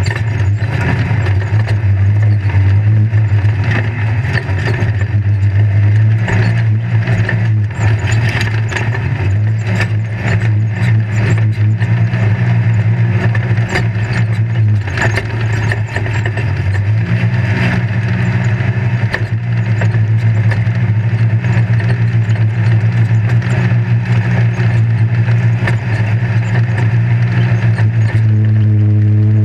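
Off-road race vehicle's engine running steadily under load, heard from inside the roll-caged cabin, with the chassis rattling and knocking over rough dirt. Near the end a clearer, higher engine hum comes through.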